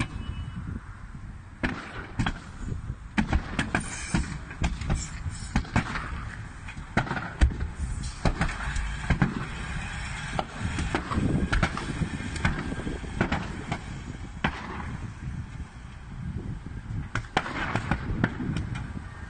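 Burning truck: irregular sharp pops and cracks, several a second at times, over a steady low rumble.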